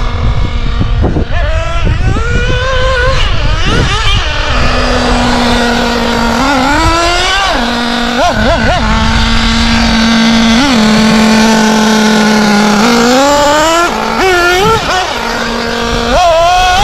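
Novarossi two-stroke nitro engine in a Kyosho Inferno MP10 1/8-scale buggy, revving up and down with the throttle: rising and falling wails, quick blips, and long stretches of steady high-pitched running.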